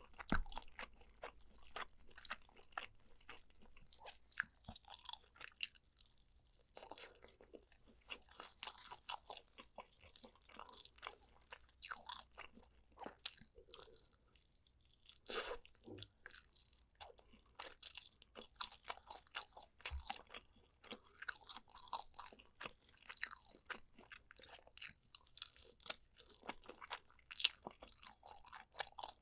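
Close-miked eating of spicy soy-braised pork ribs: wet chewing and biting with many small crisp clicks and crunches, pausing briefly twice.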